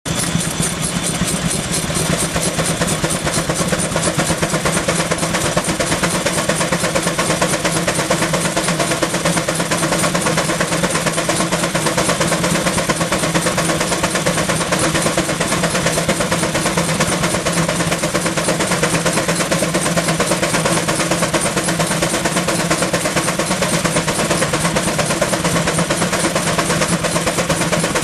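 Keck-Gonnerman steam traction engine running steadily, its engine working in a fast, even rhythm of beats.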